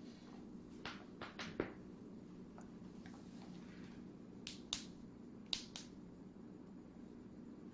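Joints cracking: a quick run of four sharp pops about a second in, then two pairs of pops later on, faint over a steady low room hum.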